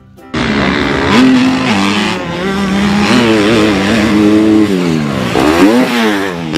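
Motocross bike engine sound effect, revving up and down. It starts abruptly about a third of a second in and is much louder than the background music around it.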